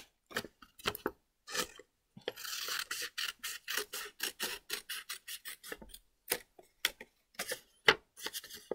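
Scissors cutting through folded paper: a run of short snips, with a longer scraping stretch about two seconds in.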